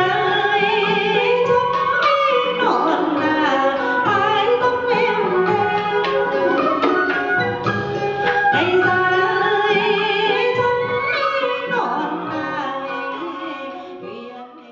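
Traditional Vietnamese water-puppet theatre music: a woman singing with a wavering vibrato over accompanying instruments and sharp drum strikes. It fades away near the end.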